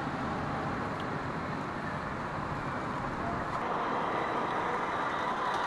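Steady rushing noise with a faint whine that grows stronger near the end, like a radio-controlled crawler's electric motor and gears running.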